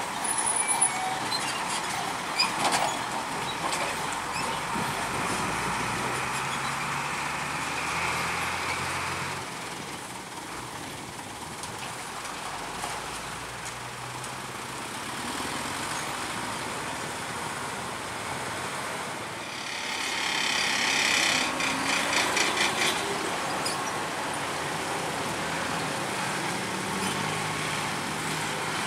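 Diesel trucks driving slowly over a railway level crossing one after another, their engines running at low speed. There is a louder stretch of rattling and clatter about twenty seconds in.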